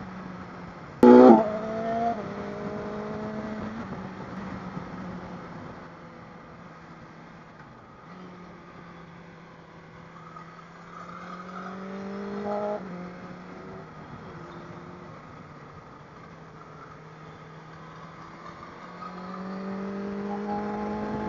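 Motorcycle engine running under way, its pitch shifting with the throttle, climbing as the bike accelerates about ten to twelve seconds in and then dropping back, over a steady rush of wind. A brief loud burst about a second in.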